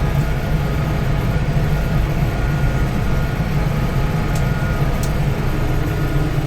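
Tractor engine running steadily while the tractor drives over a rough farm track towing a crimper: a continuous low drone at an even pitch, with a couple of light clicks about four and five seconds in.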